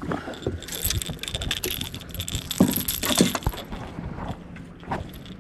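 Fishing tackle being handled: irregular small metallic clicks and rattles, with a faint steady hum underneath.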